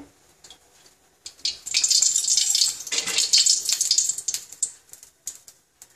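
Oil spoonfuls poured into a hot aluminium kadai for tempering, sizzling and crackling for a few seconds before dying away.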